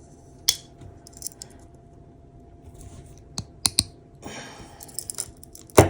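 Scattered small metallic clicks and taps from a Gerber Armbar Slim Drive pocket multitool being handled and folded, the loudest click near the end, with a soft rubbing hiss between.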